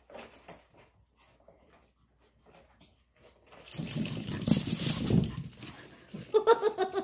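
Small dogs' claws clicking and pattering on a wooden floor as they run. About halfway through, a much louder stretch of scuffling and rustling starts, and near the end comes a quick series of short pitched sounds.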